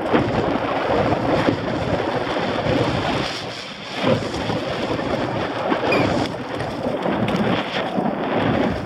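Helmet-camera sound of a Trek downhill mountain bike descending a dry dirt track at speed: wind buffeting the microphone over the rumble and crackle of tyres on loose dirt and stones, with knocks and rattles from the bike over bumps and a heavier knock about four seconds in.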